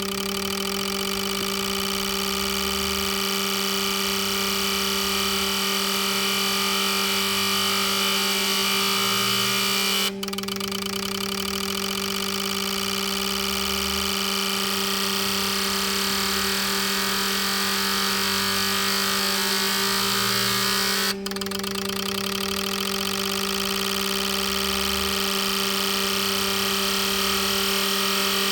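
Fuel injector test bench running a set of injectors through an acceleration-type test: a steady hum under a dense, fast high-pitched clatter of the injectors firing. There are two brief breaks, about ten and twenty-one seconds in.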